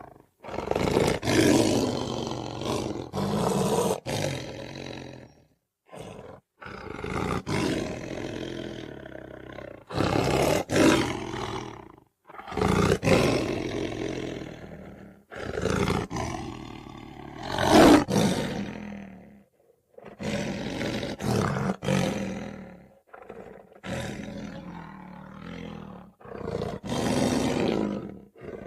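Series of about ten creature roars from a sound-designed monster (a were-hyena) built from layered animal and dinosaur roar effects. Each roar lasts a couple of seconds, with short breaks between them.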